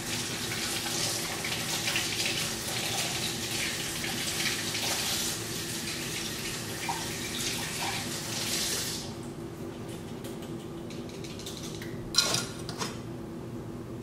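Kitchen sink faucet running as asparagus is rinsed under it, then shut off about nine seconds in. A sharp clunk follows a few seconds later, with a smaller knock just after, over a steady low hum.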